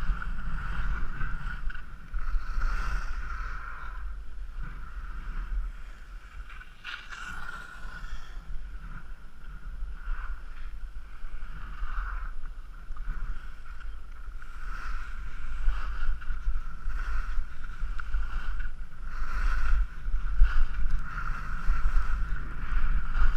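Skis carving and scraping over hard-packed piste snow, surging with each turn every second or two, under the rushing and buffeting of wind on the camera's microphone.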